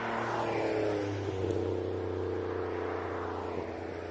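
A 1998 Chevrolet Lumina LTZ with Cherry Bomb glasspack mufflers driving past. Its V6 engine and exhaust note swell as it approaches, drop in pitch as it goes by about a second in, then fade away.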